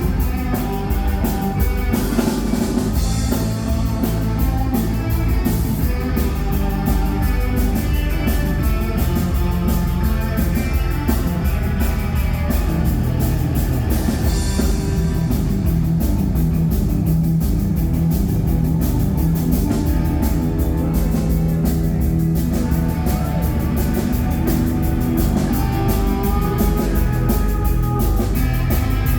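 Rock band playing live with drum kit and electric guitar, a steady driving beat, with cymbal crashes about three seconds in and again near the middle.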